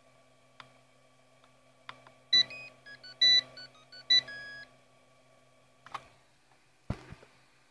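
3D printer's buzzer playing a short electronic tune of beeps at several pitches, lasting about two seconds and starting a couple of seconds in. A steady low hum runs underneath, with a few sharp clicks and a low thump near the end.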